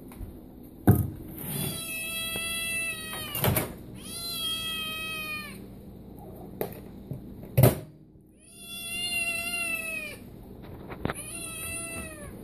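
Tabby kitten meowing loudly and insistently for food: four long, drawn-out meows, each one to two seconds. Three sharp knocks fall between them, the loudest about a second in and about two-thirds of the way through.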